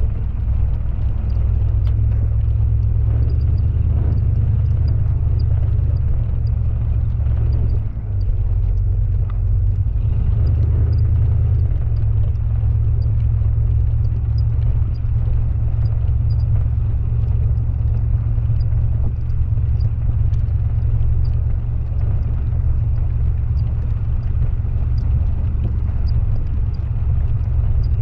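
Steady low rumble of an off-road 4x4 driving up a snow-covered road, picked up by a camera mounted outside the vehicle, with faint high ticks about once or twice a second.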